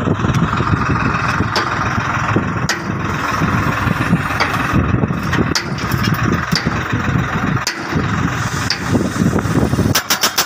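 Tractor engine running steadily to power a crash-barrier post-driving machine, with a few scattered metal knocks. Near the end its hydraulic hammer starts pounding a steel post in a fast, even run of blows, about seven a second.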